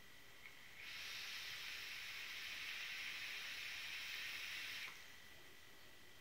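A vape dripper hisses steadily for about four seconds as air is drawn through it during one long pull while the coil fires, then stops abruptly.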